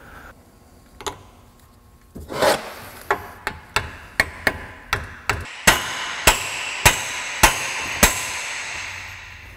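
Hammer blows on an old socket used as a driver, knocking a rubber upper control arm bushing into its mount on a Ford 8.8 rear axle housing. There is a single tap about a second in and a short scrape, then about a dozen sharp blows: light and quick at first, then five harder strikes about every half second.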